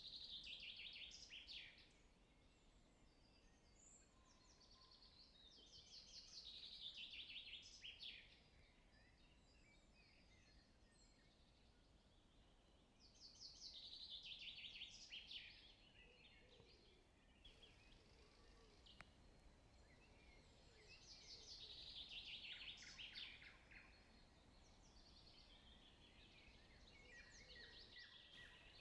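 Faint birdsong: a quick trilled phrase falling in pitch, about two seconds long, repeated about five times several seconds apart, over a low steady hiss.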